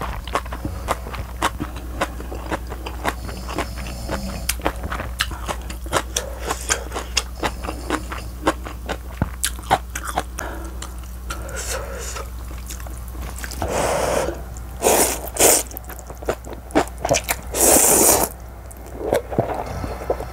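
Close-miked chewing of kimchi and noodles: many small crunches and wet mouth clicks. About two-thirds through and again near the end come several loud slurps of thin wheat noodles and broth. A steady low hum runs underneath.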